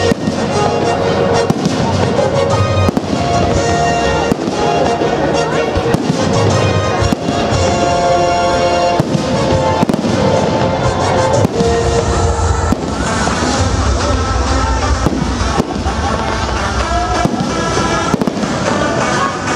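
Aerial firework shells bursting, a run of irregular sharp bangs several times a second, over steady music playing alongside the display.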